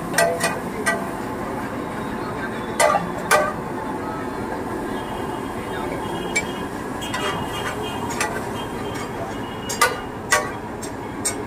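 Sharp metallic clanks of a metal utensil striking metal cookware, a few at a time near the start, twice around three seconds in, and several near the end, over a steady stall and street din.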